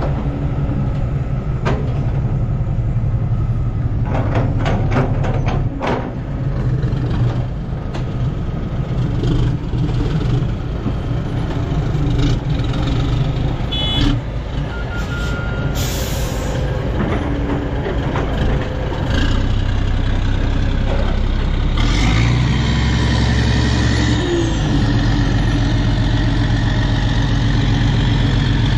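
Heavy truck engine running steadily, with a short sharp hiss of air brakes about halfway through and some clicks and knocks earlier. The engine note gets heavier and louder in the last third.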